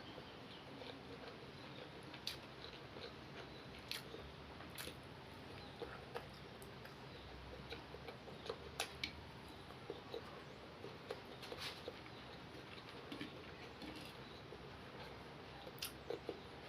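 Faint eating sounds: irregular soft clicks and smacks of a person chewing mouthfuls of plain white rice, a few clicks a little louder than the rest.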